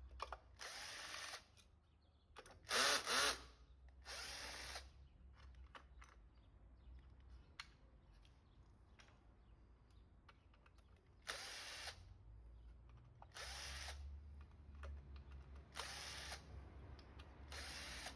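Cordless power screwdriver running in short bursts of under a second, about seven times, unscrewing bolts. The loudest burst comes about three seconds in.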